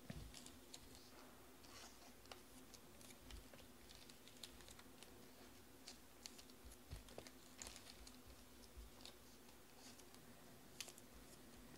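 Near silence broken by faint, irregular small clicks and rustles scattered throughout, over a low steady hum.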